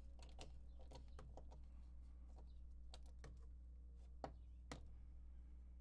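Faint, scattered small clicks of a screwdriver turning a T20 Torx screw into a G10 pistol grip panel, with the sharpest tick a little past four seconds in, over a low steady room hum.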